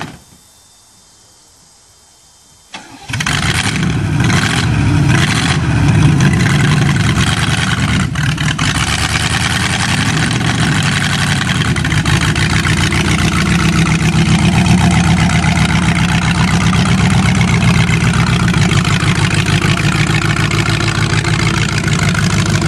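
The Cheviac's engine cold-starting after months parked: a click, then it fires about three seconds in, pulses unevenly for a couple of seconds, and settles into a steady, loud run.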